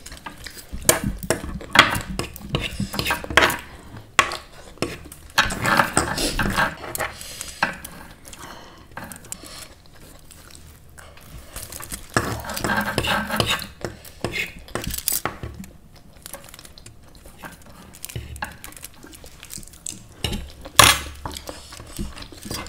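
Cutlery clinking and scraping against dishes in irregular clicks and knocks, from eating masala Maggi noodles, with a few longer, busier stretches.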